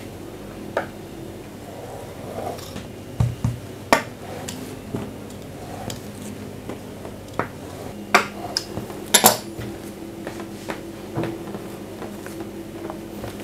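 Knife cutting rolled dough on a wooden tabletop: scattered sharp knocks and clicks of the blade against the wood, a few louder ones near the middle, over a faint steady hum.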